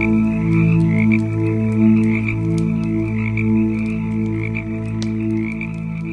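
Campfire crackling in sharp, irregular pops. Beneath it is a louder, steady low drone of several overlapping tones that swell and fade in turn.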